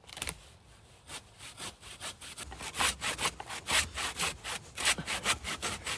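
Cheap, bent hand saw with missing teeth cutting through wood in quick back-and-forth strokes, about three to four a second. The strokes grow louder after the first couple of seconds.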